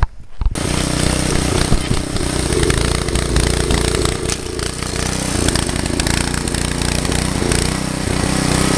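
Small Briggs & Stratton engine on a garden tiller running steadily under load as its tines dig into the soil, starting about half a second in. It runs smoothly on its freshly rebuilt carburetor.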